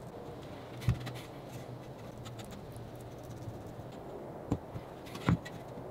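Quiet scraping and handling of 3/4-inch plywood strips on a wooden workbench as glue is spread and the strips are laid together in pairs. There are three short wooden knocks: a sharper one about a second in, then two near the end.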